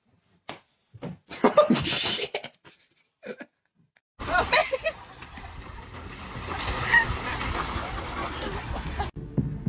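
A few scattered short sounds, then from about four seconds in, water splashing steadily as dogs thrash about in a paddling pool. The splashing cuts off suddenly just before the end.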